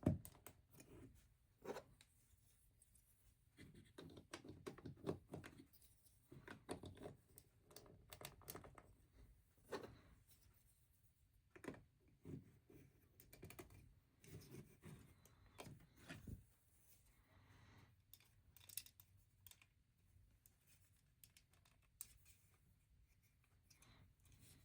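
Plastic LEGO bricks being handled and pressed together: faint, scattered clicks and small rattles.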